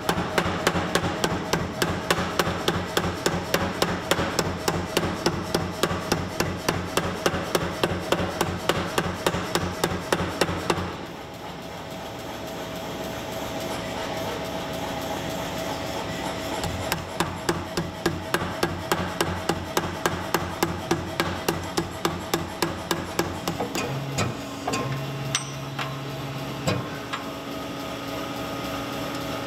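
Power hammer striking a red-hot carving-axe blank in fast, even blows, about four a second. The blows stop for several seconds in the middle while a steady hum runs on, then start again, and die away to the hum with a few scattered knocks near the end.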